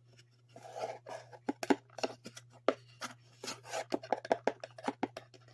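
A measuring spoon scraping and clicking as cocoa powder is scooped from its container and levelled off: a quick run of short, irregular scrapes and taps. A faint steady low hum sits underneath.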